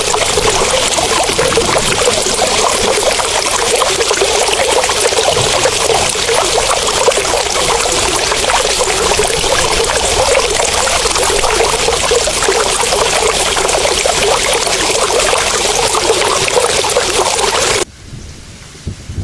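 Loud, steady rush of pouring water, of the kind heard from flood water. It cuts off abruptly near the end.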